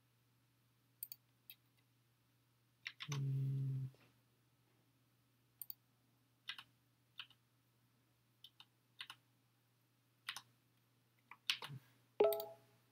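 Scattered computer mouse clicks and keyboard keystrokes over a faint steady hum. About three seconds in there is a short low tone lasting under a second, and near the end a brief louder tone.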